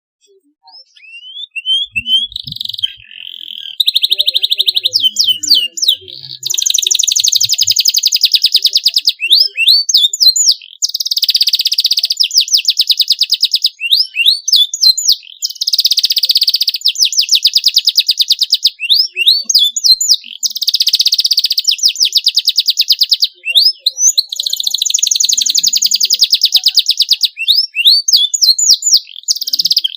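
Domestic canary singing a long, continuous song. It opens with quick upward-sweeping chirps, then moves into long rolling trills of very fast repeated notes, each lasting a few seconds, broken by short runs of sweeping chirps.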